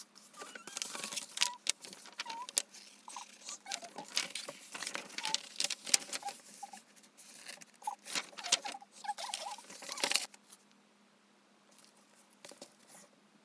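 Paper and cardboard handling as a K-pop album's glossy photobook pages and box are moved and shuffled: irregular crisp rustles, clicks and taps, with a few small squeaks. It dies down about ten seconds in to only faint handling.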